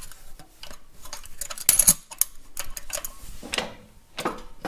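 Steel brake-linkage parts on a tractor's brake pull rod (coil spring, flat washer, jam nut and clevis) clinking and clicking as they are handled. The clicks come one after another, the loudest a little under two seconds in.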